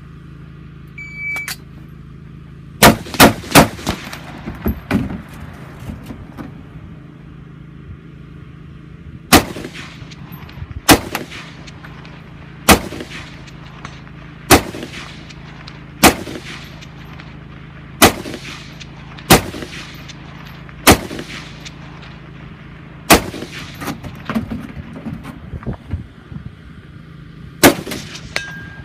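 A shot timer beeps once, then rifle shots: three in quick succession about three seconds in, then single shots every one and a half to two seconds, and a quick pair near the end.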